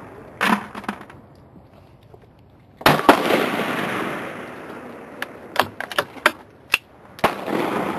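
Rifle shots at an outdoor range: a softer report about half a second in, then two loud shots about four seconds apart, each followed by a long fading echo. A run of sharp clicks falls between the two loud shots.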